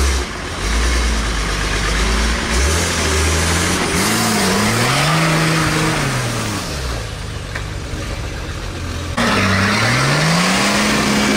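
Off-road 4x4 engine revving up and down several times, its pitch rising and falling over a steady rushing noise. The sound gets abruptly louder about nine seconds in.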